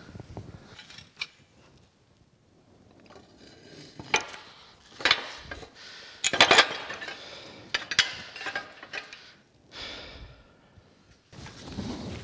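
Irregular clanks and knocks of heavy cast-iron parts of a Goldens' No. 1 cane mill being handled and set into place during reassembly. There is a handful of separate metal strikes, the loudest about halfway through.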